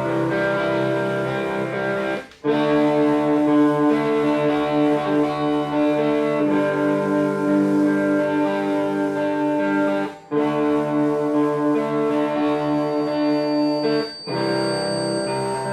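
Instrumental music with long held notes, breaking off briefly about two, ten and fourteen seconds in.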